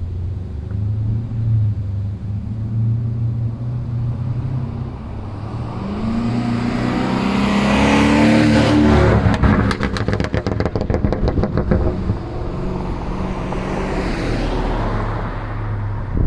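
BMW 750i's twin-turbo N63 V8 exhaust running at a steady low note, then accelerating with a rising pitch for about three seconds, then a rapid string of crackles and pops on lift-off, from the Stage 1 tune's overrun crackle map, before settling back to a steady low note.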